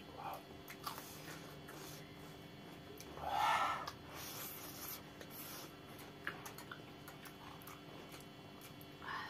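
People eating instant noodles: chewing and small fork-on-plate clicks, with one loud slurp of noodles about three and a half seconds in.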